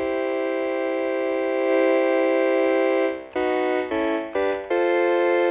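Yamaha Portasound PS-2 keyboard sounding single-finger chords: one chord held for about three seconds, then three short chords that change pitch, and another held chord near the end.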